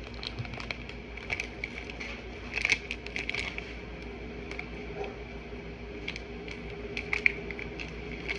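Plastic Buldak 2x Spicy ramen packet crinkling as it is handled, in scattered crackles, louder about two and a half to three and a half seconds in and again near seven seconds. A faint steady hum runs underneath.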